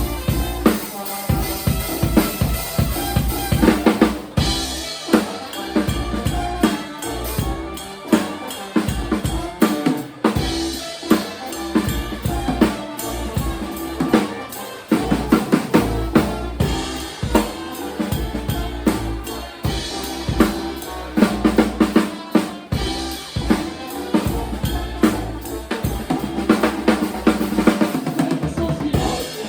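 Live band playing an instrumental passage, with the drum kit to the fore: a busy groove on bass drum and snare, with pitched instruments underneath.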